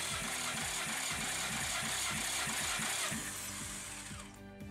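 Nissan VQ25DE 2.5-litre V6 being cranked over without firing for a compression test of its sixth cylinder: a rhythmic mechanical churning that stops a little before the end. Faint background music underneath.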